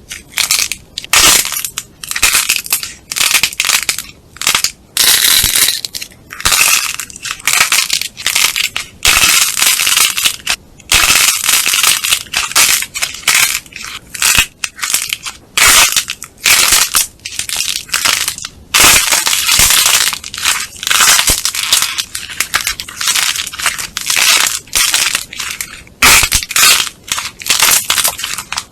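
Slime being squeezed and pressed by hand, making crackling, popping squishes that come in quick pulses about once or twice a second.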